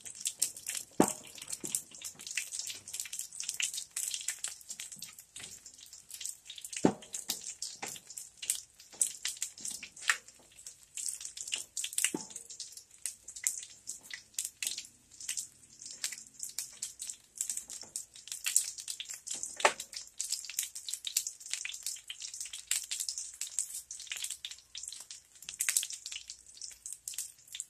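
Chicken legs frying in olive oil in metal sheet pans: a steady sizzle with dense crackling pops of hot oil. A few louder knocks come from tongs against the pans.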